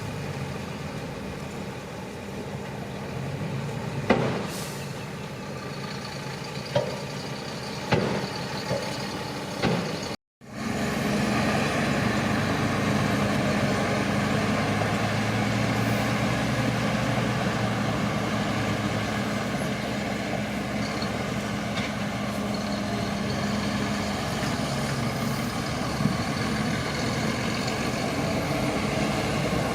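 Shantui crawler bulldozer's diesel engine running steadily, with a few sharp clanks in the first third. After a brief gap about a third of the way in, the engine runs louder and steady.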